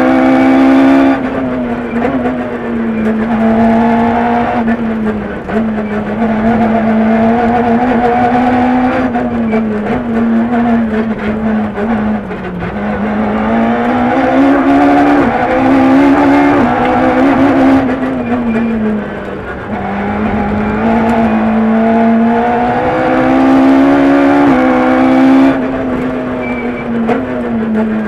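Peugeot 106 F2/13 rally car's four-cylinder engine heard from inside the cockpit, driven hard: its pitch climbs through each gear, steps down at the gear changes and drops when the driver lifts off, over and over.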